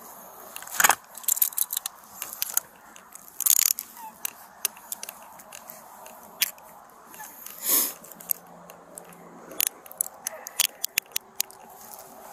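Handcuffs being put on a person's wrists behind her back: a string of sharp metallic clicks and scrapes, with a run of quick ratchet clicks near the end, amid clothing brushing against the body-worn camera.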